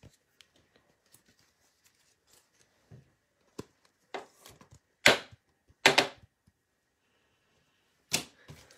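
Topps Chrome baseball cards being handled: a handful of sharp clicks and snaps as the stiff cards are flicked and slid past one another, the two loudest a little past the middle, with faint rustling between.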